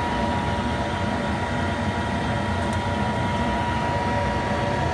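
Steady mechanical hum of a metal lathe and the shop's three-phase power running, with a constant high tone over it.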